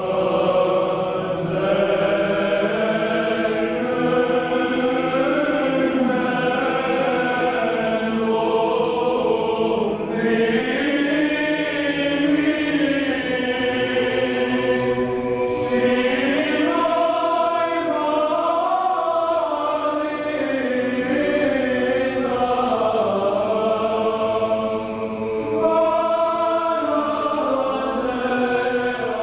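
Choir singing a slow chant, the voices holding long notes that move slowly up and down.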